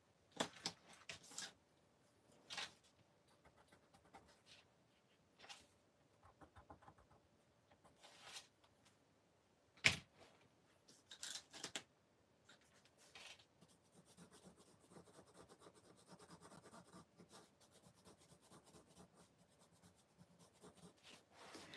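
Colored pencil scratching faintly on gouache-painted watercolor paper, drawn with light pressure, with scattered clicks and taps of pencils being handled and set down on the table; one sharp click about ten seconds in. The pencil strokes become a steadier scratching in the second half.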